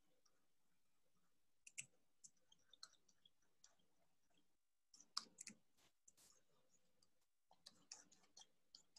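Near silence, broken by a few faint, scattered clicks, the clearest about five seconds in.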